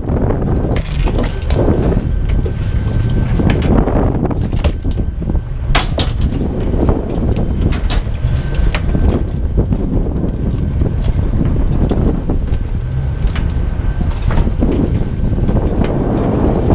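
Wind buffeting the microphone over the steady rumble of a small fishing boat, with scattered sharp knocks and clicks as cod and gear are handled on deck with a wooden gaff.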